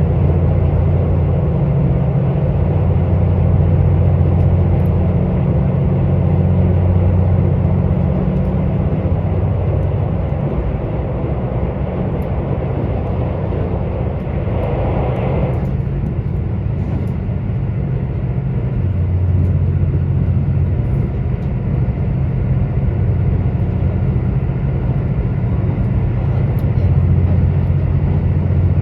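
KiHa 85 diesel railcar's underfloor diesel engines running under way, heard inside the passenger cabin as a steady low drone that swells and eases every few seconds. A brief rushing hiss passes about fifteen seconds in.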